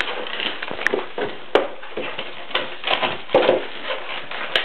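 A Pomeranian shaking and dragging a cardboard soda carton across a tile floor: irregular scrapes, crinkles and sharp clicks of cardboard on tile.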